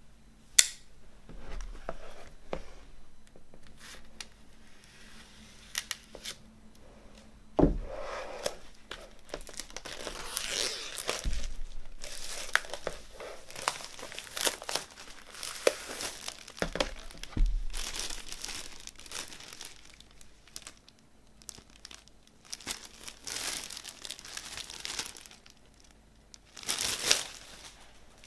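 Plastic wrapping on a vinyl LP being torn open and crinkled by hand, in irregular rustling stretches with a sharp click near the start and a few dull knocks.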